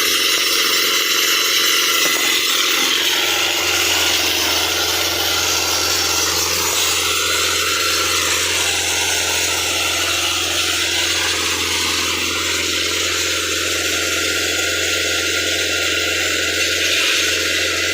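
Compressor-driven automatic rock drill boring a hole into sandstone: a loud, steady noise with a low hum underneath.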